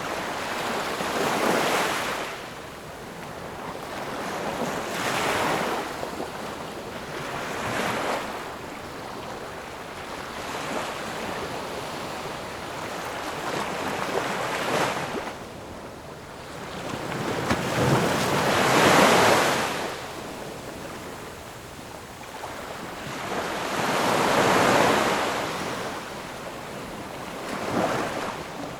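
Ocean waves breaking and washing ashore, one surge of surf every few seconds with lulls between. The wave a little past the middle is the loudest.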